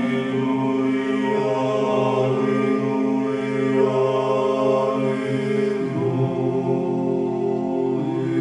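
Background music: unaccompanied vocal chant with long-held notes, the chord shifting a few times.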